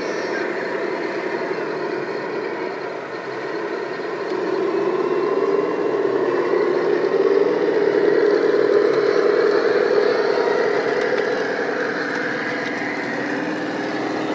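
Radio-controlled scale model of a Bergepanzer Büffel recovery tank running steadily as it drives over sand towing a tank hull: an engine-like hum with a whir. It grows louder after about four seconds and eases off a little near the end.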